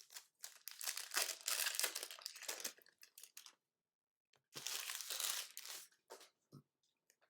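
Trading card pack wrappers crinkling and tearing as packs are opened and handled, in two spells, the first about three seconds long and the second shorter, about four and a half seconds in.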